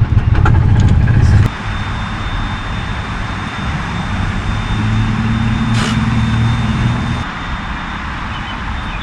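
A vehicle engine running steadily over a rushing noise of wind and motion. The engine hum is strongest for the first second and a half and again from about four and a half to seven seconds in.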